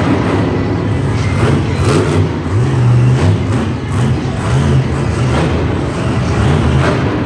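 Monster truck's supercharged V8 revving up and down over and over as the truck drives across the dirt.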